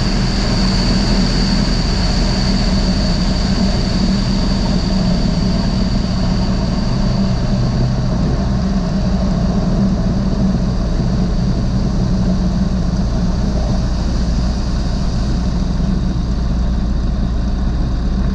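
Super Petrel LS amphibian's pusher engine and propeller running steadily as the aircraft taxis on the water, with the rush of hull spray. A thin high whine over it slowly fades.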